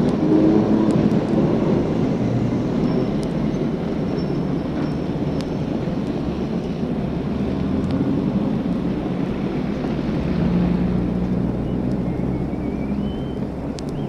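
Street traffic with trams and horse-drawn drays: a steady low rumble of passing vehicles with an engine-like hum, a few sharp clicks, and a short rising squeal near the end.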